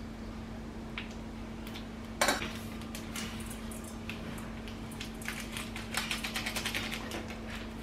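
Kitchen utensil sounds: a sharp clack of tongs on a stainless steel pot about two seconds in, then a quick run of rattling ticks from a small seasoning bottle shaken over the food near the end. A steady low hum runs underneath.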